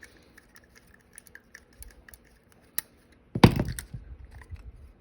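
Small plastic and metal parts of a diecast model truck being handled and pulled apart: scattered light clicks and ticks, a sharp click near the three-second mark, then a louder clatter a moment later.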